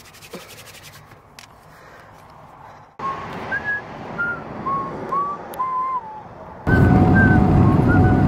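Hands rubbing quickly together at the start. Then a string of short whistled notes at varying pitches, like a little tune, over a steady running noise that gets much louder near the end.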